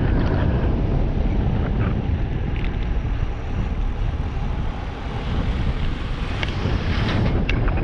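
Wind noise buffeting the microphone of a camera on a bike riding downhill at about 26 km/h, heard as a loud steady low rumble, with tyre noise on asphalt beneath it. A few light clicks come near the end.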